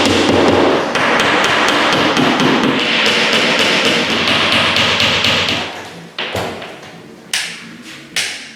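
Hammer tapping: a fast run of light, evenly spaced taps, then single separate strikes in the last few seconds.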